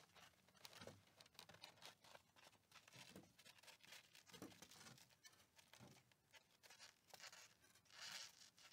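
Near silence, with faint scattered clicks and scratchy ticks and a brief soft hiss near the end.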